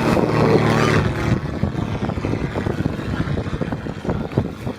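A motorboat's engine hums steadily for about the first second, then gives way to wind rushing over the microphone and water splashing against a hull.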